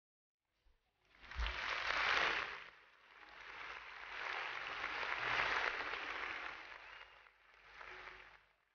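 Crowd applause. It starts about half a second in, swells and eases in three waves, and fades out near the end.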